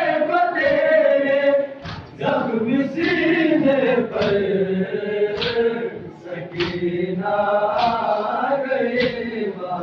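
A group of men chanting a noha, a Shia Muharram lament, in unison with long wavering held notes. Sharp slaps fall about every second and a bit, in time with the chant: the mourners beating their chests (matam).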